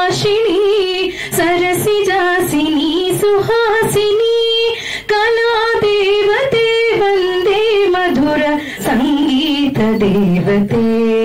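A woman singing solo into a handheld microphone, a slow melodic line with long held notes that waver in pitch.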